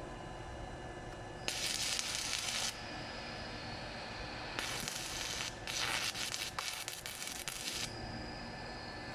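Electric welding arc from a portable welding machine crackling and sizzling as the weld is struck, in two runs: one of about a second, then a longer one of about three seconds that breaks off briefly a few times. A steady hum with faint whining tones runs underneath.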